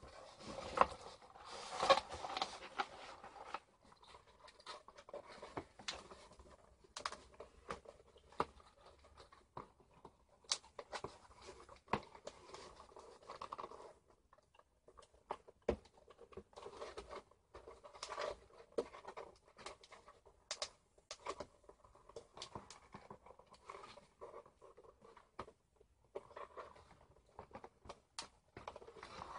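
Cardboard toy packaging being handled and opened by hand: scattered rustling, scraping and small clicks and taps, loudest in the first few seconds.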